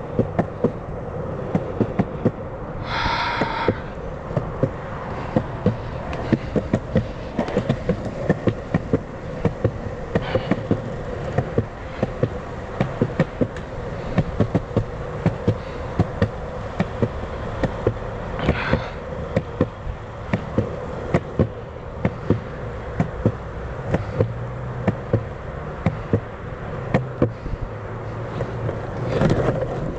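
Longboard's wheels rolling over pavement: a steady rumble broken by rapid, irregular clicks and ticks.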